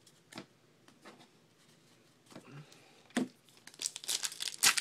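Trading cards handled with a few soft clicks, then the wrapper of a card pack crinkling sharply near the end as it is torn open.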